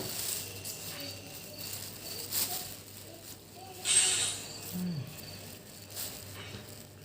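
Soft wet clicks and hissing mouth noises of someone chewing betel leaf, with a short louder hissing burst about four seconds in.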